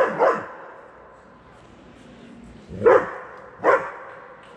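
Young German Shepherd barking at a cat it wants to play with: two quick barks at the start, then two more, spaced apart, about three seconds in.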